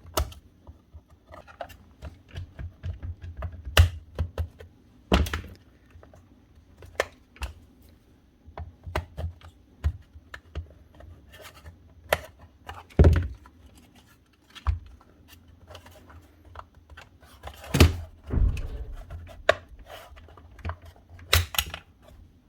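Hard plastic parts of a cordless strimmer's housing being handled and pried apart: irregular clicks, taps and scrapes with a few louder knocks.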